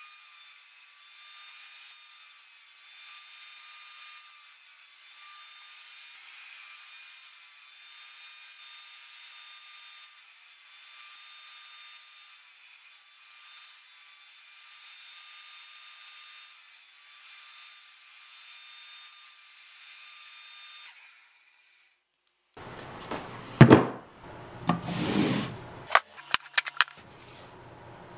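Benchtop table saw running, its spinning blade cutting a pine table-leg blank held in a clamped sled: a thin, steady whine that wavers slightly. It stops abruptly about three-quarters of the way through, followed by several loud wooden knocks and clatters as the sawn pine leg pieces are set down.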